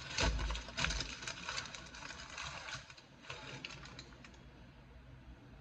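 Aluminium foil and paper sandwich wrapper crinkling and crackling as the sandwich is handled, with a dull bump just after the start. The crackling thins out about four seconds in.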